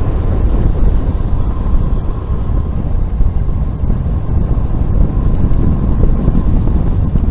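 Loud, steady wind rushing over the microphone of a bicycle-mounted camera as a road bike coasts downhill at about 45 to 55 km/h.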